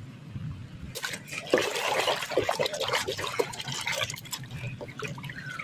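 Water sloshing and splashing as a hand scrubs a muddy plastic toy in a basin of foamy water, starting about a second in with many small crackles and splashes.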